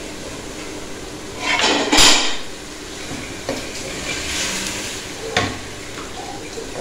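Water poured into a hot pan of frying chicken, hissing up sharply for under a second about two seconds in, then a metal spoon stirring and knocking against the pan over a low sizzle. The water is added so the chicken simmers until tender.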